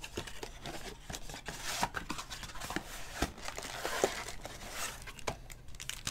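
Hands opening a cardboard trading-card box and handling the wrapped packs inside: papery rustling and crinkling with scattered light taps and clicks.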